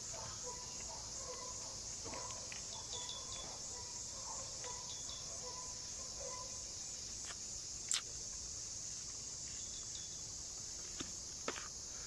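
Steady, high-pitched chorus of insects, with a few short high chirps. A single sharp click comes about two-thirds of the way in, and two light knocks come near the end.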